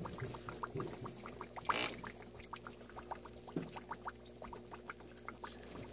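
Small saltwater aquarium water trickling and bubbling over a steady low hum, with many small scattered ticks and one short hiss about two seconds in.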